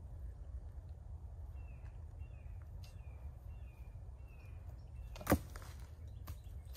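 A bird calls a run of about five short, slightly falling notes, then a single sharp knock sounds about five seconds in, the loudest thing heard, over a steady low rumble.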